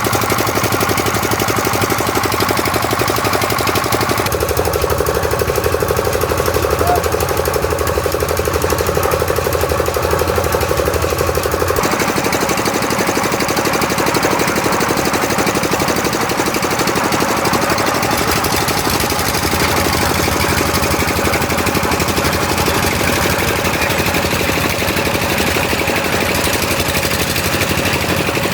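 Engine of a concrete mixer and lift machine running steadily, with a rapid knocking beat. The sound changes abruptly about four seconds in and again about twelve seconds in.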